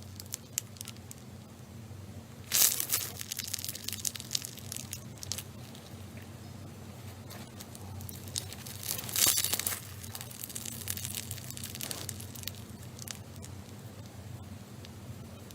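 Slime being squeezed and worked by hand, giving scattered sticky crackles and pops, with two louder bursts of dense crackling, the first about two and a half seconds in and the second about nine seconds in. A faint steady low hum runs underneath.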